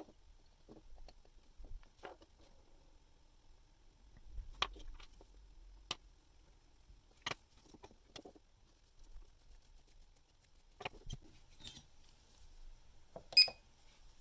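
Small steel watchmaking tools clicking and tapping against a watch movement: scattered light clicks, with a sharper metallic clink that rings briefly near the end.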